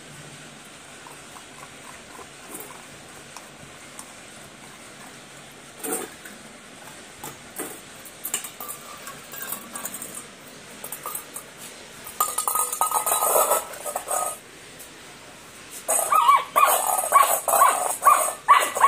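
A German Shepherd puppy eats from stainless-steel bowls, with a few light clinks of metal on the tiled floor. Around twelve seconds in there is a louder rustling burst. From about sixteen seconds the puppy gives a quick run of short, high yips.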